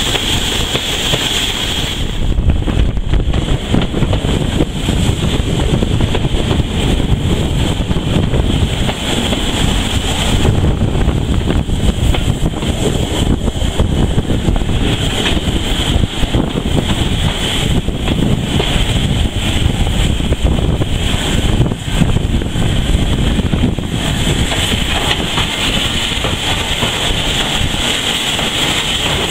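Heritage railway train running along the line, heard from on board, with wind buffeting the microphone.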